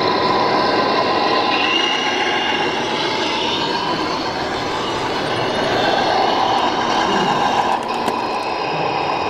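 Radio-controlled scale model truck driving under load, its electric drive and gears making a steady whine that shifts in pitch, over the noise of a busy exhibition hall.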